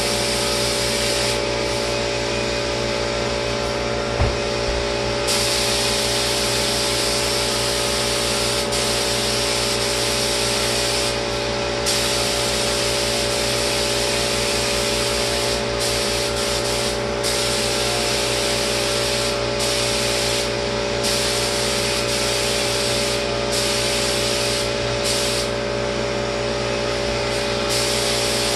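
Spray gun hissing as lacquer is sprayed onto cabinets. The hiss rises and falls many times as the trigger is pulled and released, over a steady motor hum. There is one short knock about four seconds in.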